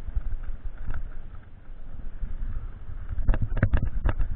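Mountain bike being ridden on a trail: a steady low rumble with wind noise, and a louder cluster of knocks and rattles about three seconds in.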